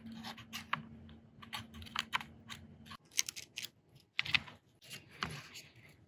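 Irregular small clicks and scrapes of a spudger and fingertips prying an iPad Mini 4 logic board up from its metal frame as the adhesive lets go. A faint steady low hum sits under the first half.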